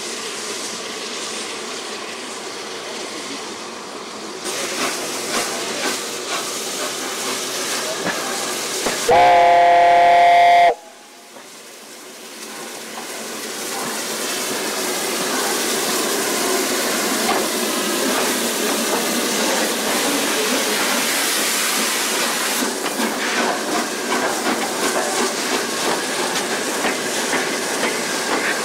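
Three-cylinder Peppercorn A1 steam locomotive 60163 Tornado hissing steam, then one loud whistle blast about nine seconds in, lasting about a second and a half and cutting off sharply. After it the locomotive works away with its train, the exhaust and running noise growing louder and staying steady as it passes.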